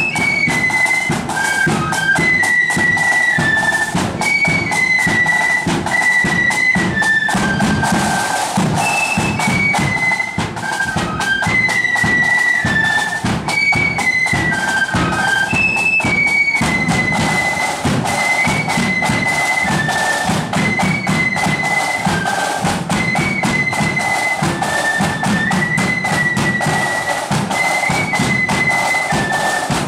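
Marching flute band playing a march: high flutes carrying the tune in unison over steady bass drum and side drum beats.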